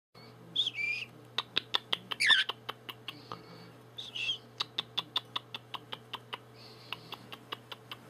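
Budgerigar giving three short chirps while tapping its beak against a glass vodka bottle in quick runs of sharp taps, about five a second.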